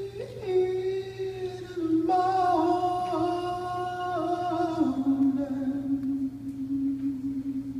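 Music with a singing voice holding long, drawn-out notes, moving to a higher line about two seconds in and dropping to a lower held note about five seconds in.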